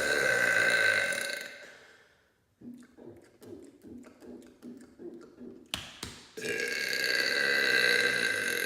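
A man's long, loud pitched burp fades out about two seconds in. A run of short, quieter gulping sounds follows, then two sharp clicks, and a second long burp starts just past the middle.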